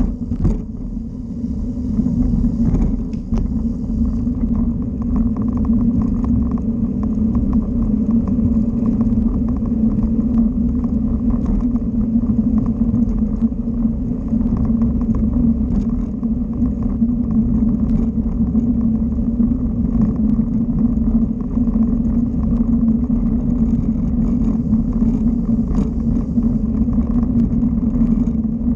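Electric bike rolling along a paved path, heard as a steady rumble of tyre noise and wind buffeting on a handlebar-mounted camera, with a few light knocks.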